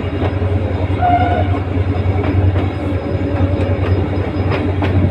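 Diesel locomotive under way, its engine a steady low drone, with a brief high tone about a second in and the wheels clacking sharply over rail joints twice near the end.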